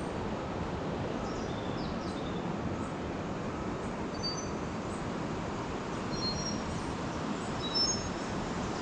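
Birds chirping, short high calls scattered through, over a steady rushing outdoor background noise.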